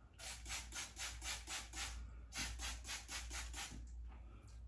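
Hand-pumped spray bottle misting water onto a synthetic wig. It gives two quick runs of short sprays, about five a second, with a brief pause between them.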